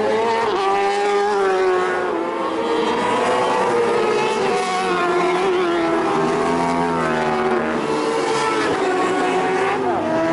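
Racing motorcycle engines at high revs, several engine notes at once, their pitch rising and falling over a few seconds at a time as they accelerate and pass.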